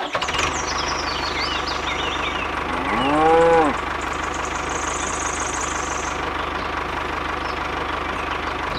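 Tractor engine running steadily with a low chugging beat. A cow moos once, loudly, about three seconds in.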